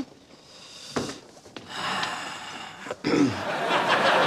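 A short breathy vocal sound about a second in, then people laughing from about three seconds in, loud and continuing.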